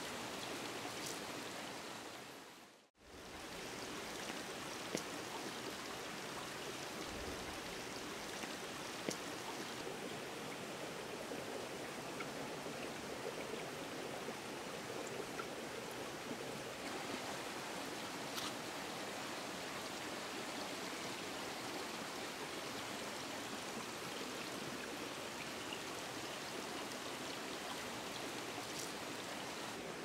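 A small shallow stream running over stones, making a steady watery rush. The sound drops out and comes back about three seconds in.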